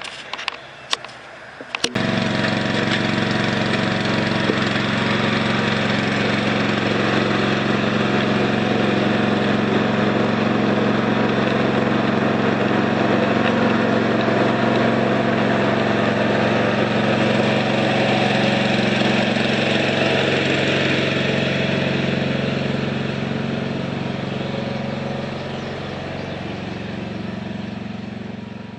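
A few clicks, then about two seconds in a Homelite XL two-stroke chainsaw engine comes in suddenly and runs steadily, easing off a little near the end.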